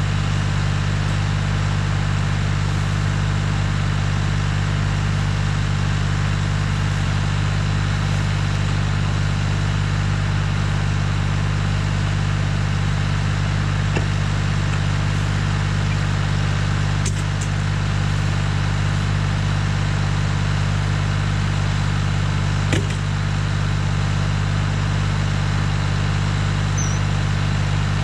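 Tractor engine running at a steady speed, driving a BX52 PTO-driven wood chipper, with a steady low hum and a couple of faint knocks about two-thirds of the way through.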